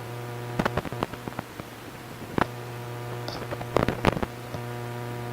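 Steady electrical mains hum with a stack of even overtones, with scattered sharp clicks and taps of hand tools working on a circuit board during desoldering.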